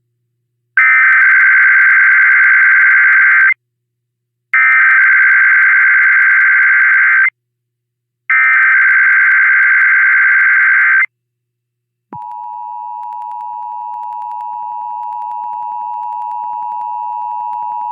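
Emergency Alert System test tones: three bursts of SAME digital header data, each a raspy electronic buzz about three seconds long with short gaps between. About a second after the third burst, the steady two-tone attention signal starts, slowly growing louder.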